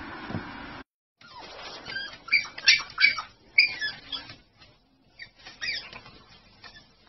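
Dog whining: a run of short, high-pitched whimpers and squeals with wavering pitch, loudest in the middle and tailing off near the end.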